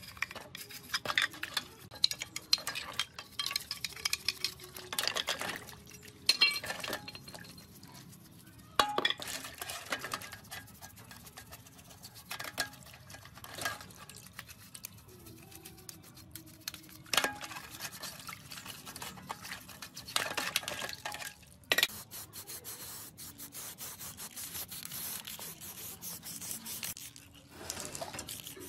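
A brush scrubbing rusty metal parts of an old Makita circular saw in an aluminium basin of soapy water, with irregular scraping, clinks of metal against the basin and splashing. In the last several seconds this gives way to the steady hiss of an aerosol spray-paint can.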